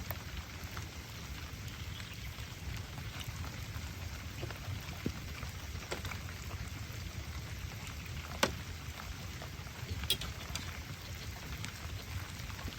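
Steady rain, with scattered drops striking close by as sharp ticks; one louder drop hits about eight and a half seconds in.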